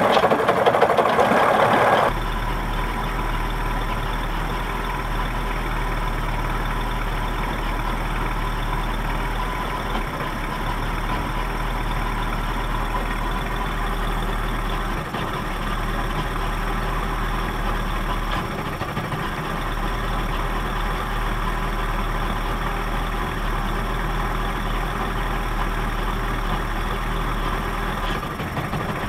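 1979 Johnson 55 two-cylinder two-stroke outboard motor idling roughly. It runs louder for about the first two seconds, then drops to a lower idle whose low hum breaks off briefly a few times.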